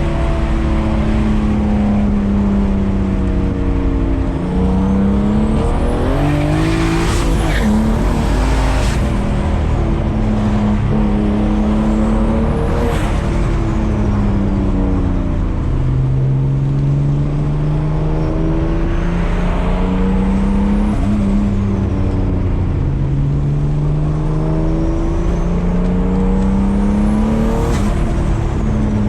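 Turbocharged BMW E36 accelerating hard through several gears: the engine note climbs in pitch, then drops at each shift, while a high turbo whistle rises with it. At the lift-offs around the shifts the turbo flutters with a rough chatter.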